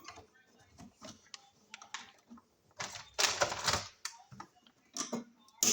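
Scattered clicks and taps of hand tools and electrical parts being handled during receptacle replacement, with about a second of denser rattling noise midway and a sharper click near the end.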